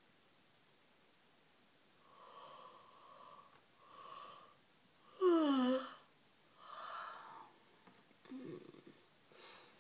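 A woman yawning: a few drawn-in breaths, then a loud voiced yawn whose pitch falls over about half a second, followed by a breathy exhale and a short low voiced sigh.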